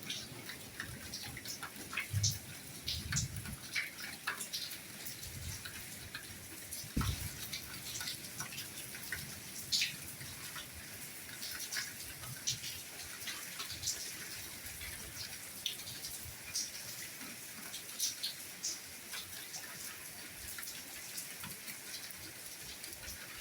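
Soft rain falling: a steady hiss of rainfall with many irregular close drops ticking and pattering, and an occasional heavier drop landing with a dull thud.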